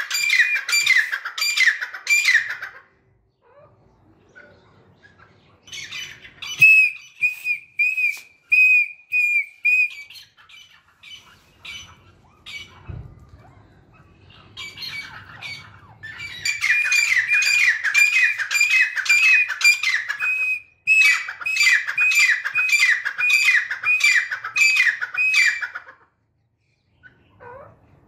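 Grey francolins calling: rapid series of high, ringing notes at about three a second, in several bouts with pauses between, the longest running through most of the second half.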